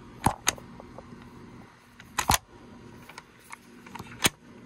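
Bolt action of a Winchester Model 70 rifle being worked by hand: a few sharp metal clicks of the bolt. Two come close together at the start, a quick double click follows about two seconds in, and one more comes near the end as the bolt locks up tight.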